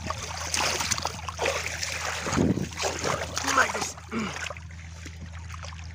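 Shallow muddy water splashing and sloshing as hands churn and dig in it, easing off about four seconds in.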